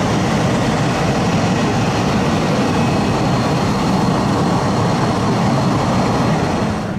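Jet aircraft engine noise, a loud steady rush with a faint high whine over it, easing off at the end.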